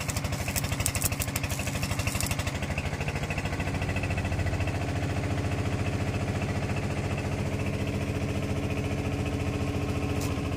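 Engine idling steadily with an even, fast pulse. A crackling hiss rides over it for the first two seconds or so, then drops away.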